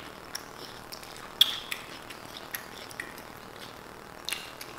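Eating sounds: chewing steak burrito and bowl food, with scattered sharp clicks. The loudest click comes about a second and a half in.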